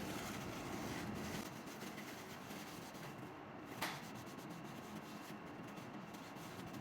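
Faint rubbing and scraping as the plastic valve housing of a water timer is cleaned by hand, with a single sharp click about four seconds in.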